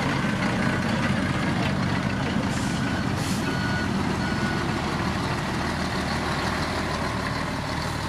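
Heavy diesel dump trucks running and moving slowly, a steady engine rumble, with a reversing alarm beeping on and off. Two short hisses stand out near the middle.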